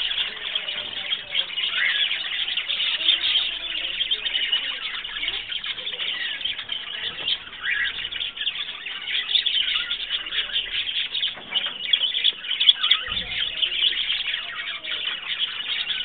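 A flock of budgerigars chattering and warbling: a dense, unbroken mass of quick overlapping chirps from many birds at once.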